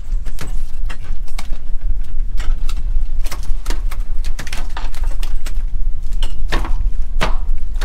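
Working noise on a small aluminium cod-jigging boat: a steady low rumble under many irregular short clicks and knocks of fishing gear on deck.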